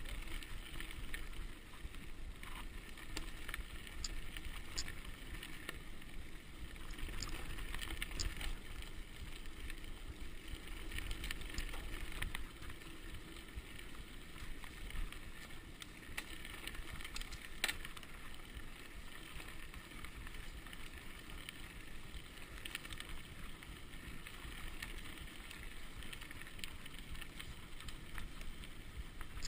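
Mountain bike rolling fast over a dirt and gravel track: tyre noise and wind buffeting the microphone, with occasional sharp clicks and rattles from the bike, one loud click about halfway through.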